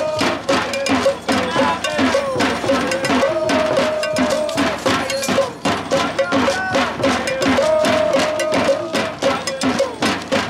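Mardi Gras Indian street percussion: a cowbell struck over and over in a fast, steady beat with drums, and voices singing along.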